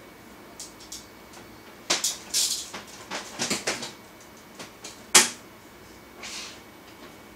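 Irregular clicks and knocks with short rustling noises, bunched between about two and four seconds in. The sharpest click comes about five seconds in, and a brief hiss follows a second later.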